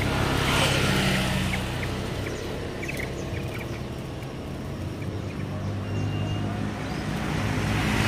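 Road traffic running steadily, with vehicles passing close and swelling up near the start and again at the end. Scattered short high chirps from small caged birds sound over it.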